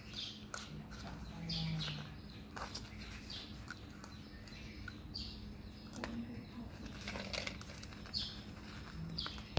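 Short high chirping calls repeated every second or two, among light knocks and rustles of a plastic bowl being handled on a woven mat.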